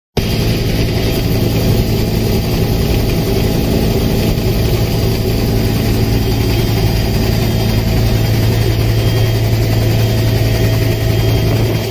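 Helicopter cabin noise in flight: a steady drone of engine and rotors with a strong low hum, broken only by a split-second gap at the very start.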